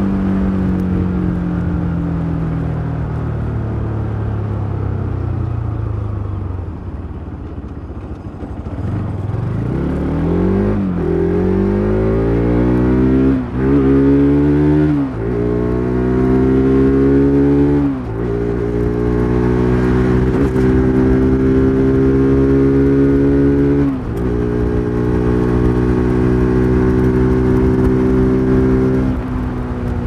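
Bajaj Pulsar RS 200's single-cylinder engine through its stock exhaust, first falling in pitch as the bike slows off the throttle. From about nine seconds in the throttle opens and the engine revs up through several upshifts, each a brief drop in pitch, then settles into a steady cruise.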